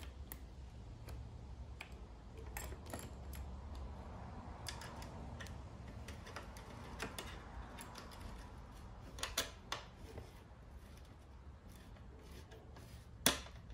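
Faint, scattered small clicks and ticks of an Allen key and bolt being worked by hand into the plastic radiator shroud of a Honda CRF250L, with light handling of the shroud panel; a sharper click comes near the end.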